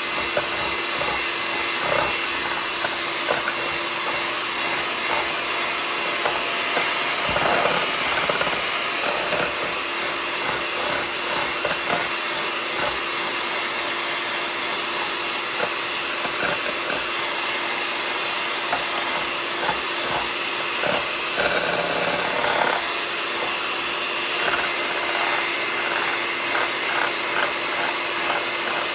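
Electric hand mixer running steadily, its beaters whipping instant coffee, sugar and hot water into foam in a ceramic bowl. Light ticks of the beaters against the bowl come and go, more often near the end.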